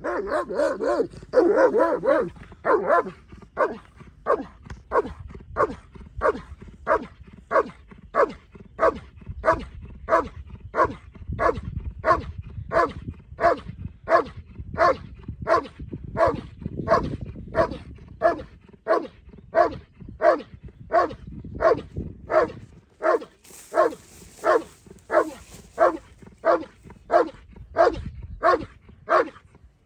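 German Shepherd doing a hold-and-bark at the helper in the blind: a steady, evenly paced run of barks, a little under two a second, the dog keeping the helper in place without biting. The barking is loudest and densest in the first couple of seconds as it arrives at the blind.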